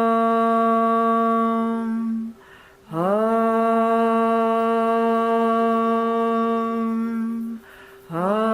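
A single voice toning a long, steady humming note, as in chakra toning. The note breaks off for a breath about two seconds in and again near the end, and each new tone slides up into its pitch.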